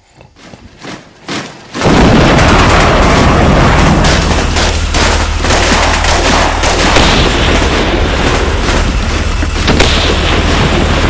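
Battle sound effects. A few scattered shots grow louder over the first two seconds, then a dense, continuous din of gunfire and explosions sets in.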